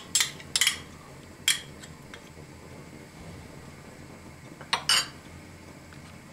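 Short clinks and knocks of kitchenware being handled and set down on the counter: three in the first second and a half, then a quick pair about five seconds in.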